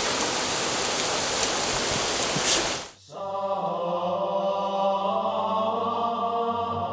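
Meat sizzling on a barbecue grill, a steady hiss that cuts off suddenly about three seconds in. A held chord of background music follows.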